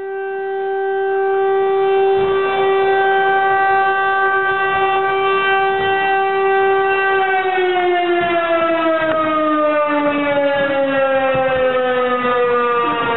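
Motor-driven siren: a steady wail that swells up over the first couple of seconds and holds one pitch, then about seven seconds in starts to wind down, its pitch falling slowly and evenly.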